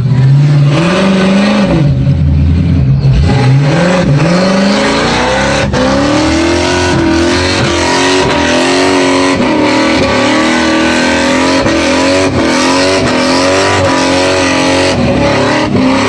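Burnout car's engine revving in blips, then held at high revs with the pitch wavering, over the screech and hiss of the rear tyres spinning on the pad.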